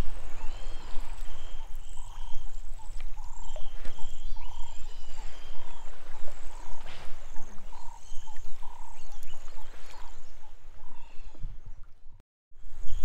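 Wildlife calls from the riverbank: a short note repeated evenly about one and a half times a second, with fainter higher chirps over it and a low steady rumble beneath. The sound cuts out briefly near the end.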